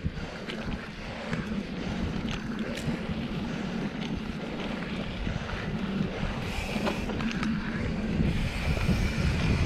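Wind buffeting the microphone and mountain-bike tyres running over a dirt singletrack, with scattered sharp clicks and rattles from the bike; the noise grows a little louder near the end.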